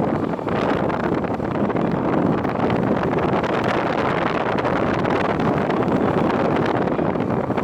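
Steady rush of wind on the microphone aboard a moving sightseeing boat on a lake, with the boat's own running and water noise blended in.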